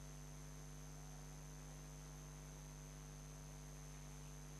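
Near silence: a faint, steady electrical hum with a thin high whine, picked up in the recording during the pause.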